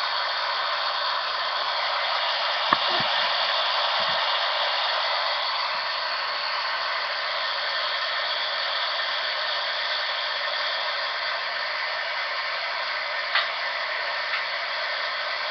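Steady white-noise static hiss, with a single sharp click about three seconds in.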